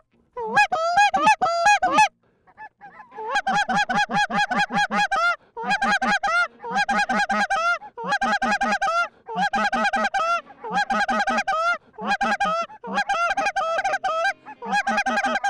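Canada goose call blown hard in quick runs of clucks and honks, about seven notes a second, each run lasting one to two seconds with short breaks between: a hunter calling to geese working the decoys.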